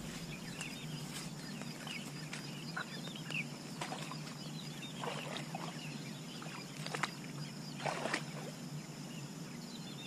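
Marsh ambience: small birds chirping over and over above a steady low hum, with the swish and rustle of someone pushing through tall grass. The rustles come in short bursts, the loudest twice near the end.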